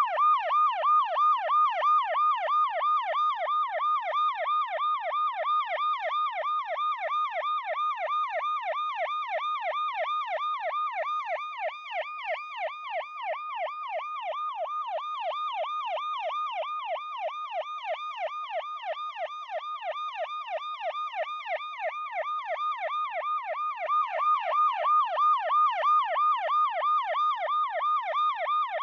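Police car siren in a fast yelp: its pitch sweeps up and down about three times a second, on and on without a break. It gets a little quieter around the middle.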